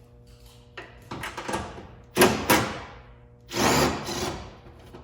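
Cordless impact driver with an 8mm socket running out the spoiler's bolts in short bursts, the loudest two quick ones about two seconds in and a longer run near the end.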